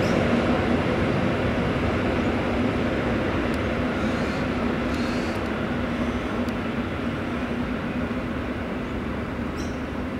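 A four-car Tait 'Red Rattler' electric suburban train running away along the track, its steady hum with a low tone fading gradually as it goes. There are a few faint ticks.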